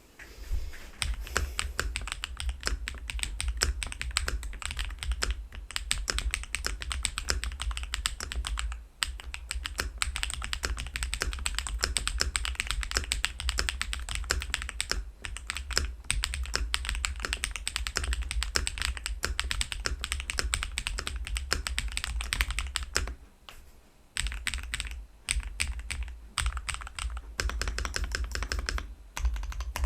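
WhiteFox Eclipse mechanical keyboard with Firstgr Bunny switches being typed on fast and continuously, in a dense run of key clacks with a few brief pauses.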